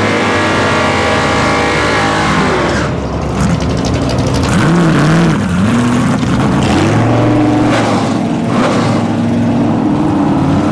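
Drag car's engine held at steady high revs through a burnout, the revs dropping away about three seconds in. Then it runs at a lower, uneven note, rising and falling as it is blipped while the car creeps out of the tyre smoke toward the start line.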